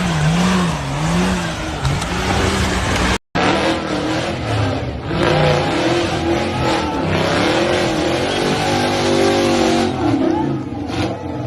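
Off-road vehicle engines revving, their pitch rising and falling repeatedly. The sound breaks off about three seconds in and picks up again, with a higher rev held briefly near the end.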